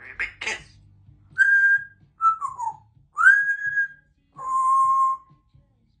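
Congo African grey parrot whistling: two short clicking sounds at the start, then four whistled notes in turn: a steady note, one that drops in pitch, one that slides up and holds, and a lower steady note.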